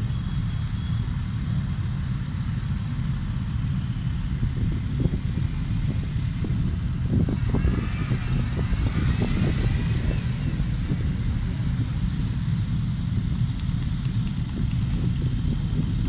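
A large group of motorcycles running at low speed together, a steady deep engine rumble. Some brief higher wavering sounds come through about halfway.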